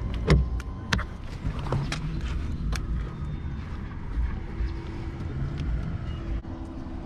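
Steady low vehicle rumble with scattered sharp clicks and taps as hands press cleaning putty against plastic car door trim; a faint steady hum comes in about halfway through.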